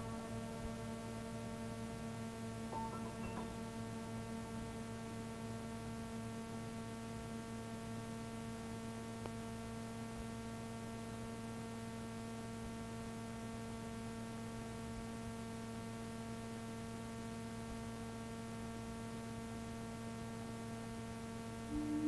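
Steady electrical mains hum, a low buzz with many even overtones, with faint tape hiss from cassette playback while the music is silent. Faint traces of notes appear about three seconds in.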